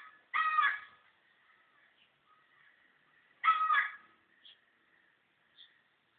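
Two harsh animal calls, each about half a second long: one just after the start and another about three and a half seconds in.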